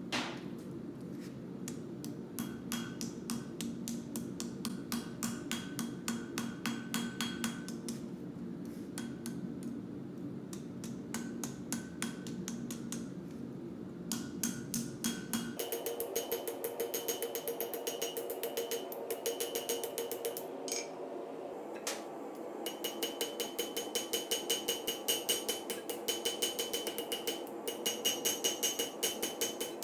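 Blacksmith's hammer striking steel on an anvil in quick, regular runs of several ringing blows a second, with short pauses between runs. About halfway the ring of the blows changes pitch and a low steady hum underneath stops.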